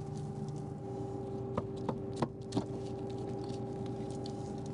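John Deere 9500 combine's diesel engine running steadily with its separator off. A few sharp knocks in the middle as rocks are worked out of the rock trap.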